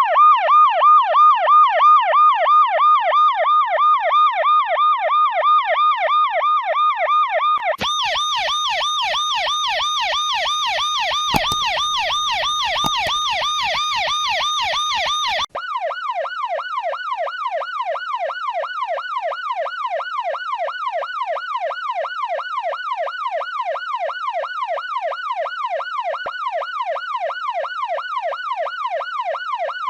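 Emergency-vehicle sirens in a fast yelp, the pitch sweeping up and down several times a second. The siren tone changes twice, about eight seconds in to a brighter, harsher yelp and about fifteen seconds in to a slightly slower, lower sweep.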